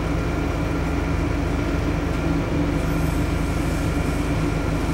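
Scania K230UB city bus's 9-litre five-cylinder diesel engine running steadily: an even drone of engine tones over a bed of noise, with no change in pitch or level.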